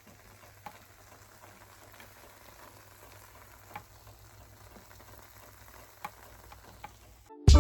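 Food frying in a pan: a faint, steady sizzle with a few small pops.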